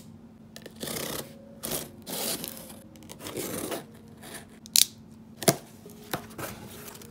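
Utility knife slicing through packing tape along a cardboard box's seam in several short scraping strokes, then the cardboard flaps pulled open with two sharp cracks about five seconds in.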